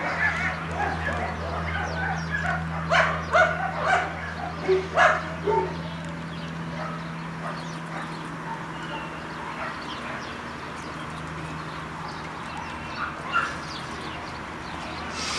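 A dog yipping and whimpering, with a quick run of sharp, loud yips a few seconds in, then quieter with one more short outburst near the end.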